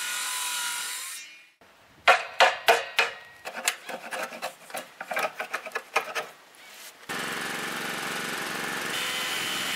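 A circular saw finishing a cut in a hardwood board, stopping about a second and a half in. Then a hand chisel paring a tenon, a run of sharp, irregular knocks and scrapes for about five seconds. Near the end a power tool, likely a router, starts and runs steadily.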